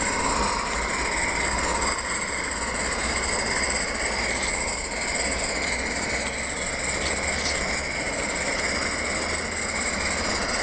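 16mm-scale live-steam model locomotive running slowly with a train of hopper wagons, giving a steady hiss of steam, with a few faint ticks.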